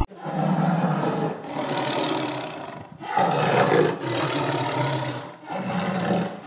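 Tiger growling and roaring in a run of about five calls, each a second or so long, with short breaks between them.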